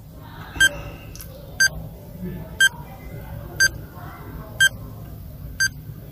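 Quiz countdown timer beeping once a second, a short high electronic beep each time, marking off the ten seconds given to answer a question.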